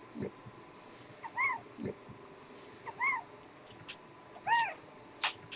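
Young puppies squeaking while nursing: three short squeaks, each rising and falling in pitch, with a couple of low grunts early on and a few sharp clicks near the end.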